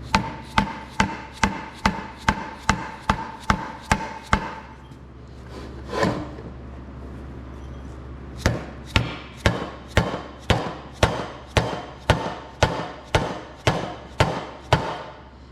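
Steady tapping blows on a Kohler K241 engine's oil pan, about two a second, to break a pan that is stuck fast by its gasket sealant: a run of about eleven strikes, a lone strike after a short pause, then a second run of about fourteen.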